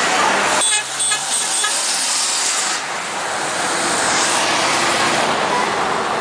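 Steady road and engine noise of a car driving, with a short pitched sound about a second in.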